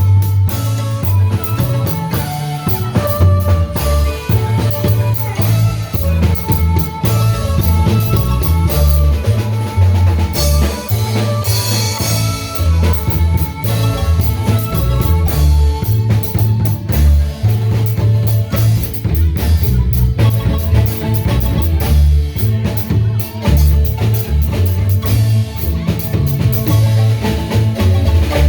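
Marimba band playing an upbeat dance tune, with a drum kit keeping time and a bass line moving underneath.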